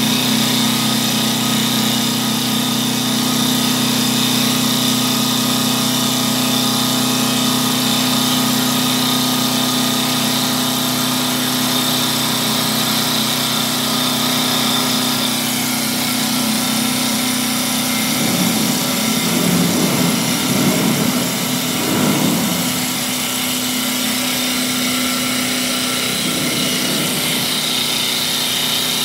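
Double-axis CNC wood lathe running as it turns two baseball bat blanks: a steady motor hum with a high whine, joined a little past the middle, and again briefly near the end, by a rougher, wavering noise as the cutters work the wood.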